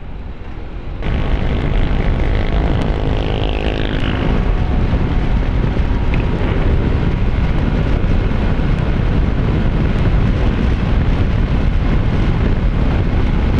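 Honda ADV 160 scooter riding under way, its single-cylinder engine partly buried under a steady rush of wind on the microphone. The noise jumps up suddenly about a second in and then holds.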